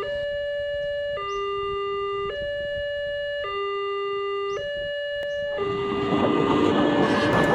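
Two-tone hi-lo siren, alternating between a higher and a lower note about once a second. From about six seconds in, a passing train's noise builds up over it.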